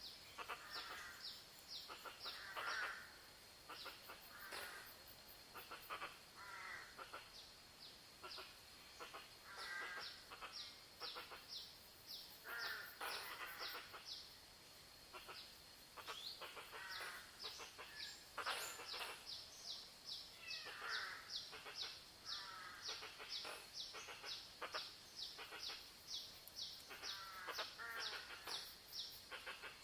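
Several birds calling at once in a jungle chorus: rapid, repeated short high chirps mixed with warbling calls that come and go, over a steady high-pitched hum.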